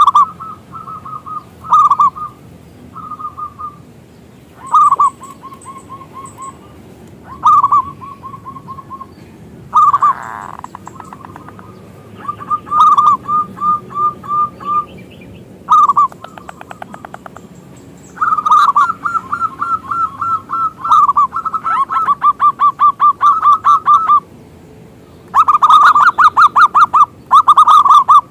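Zebra doves (perkutut) cooing: repeated phrases that each open with a louder note and run into a quick string of short, rolling coos, the series growing longer and denser in the second half.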